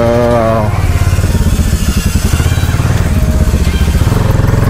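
Motorcycle engine running at low revs with a steady, fast thrum of exhaust pulses as the bike creeps along.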